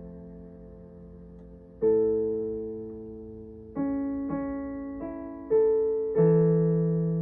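Piano played slowly: a held chord fades away, then new notes and chords are struck about two seconds in and several more times over the following seconds, each left to ring and die away.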